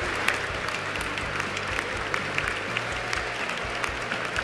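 A large audience applauding steadily, with music playing underneath.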